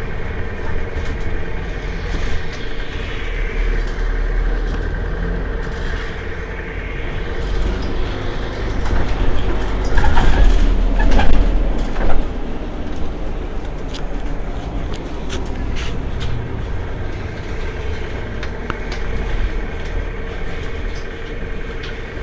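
Mercedes-Benz Citaro G C2 Euro 6 articulated bus's diesel engine idling while parked: a steady low rumble with a constant whine over it. The sound swells louder for about two seconds near the middle.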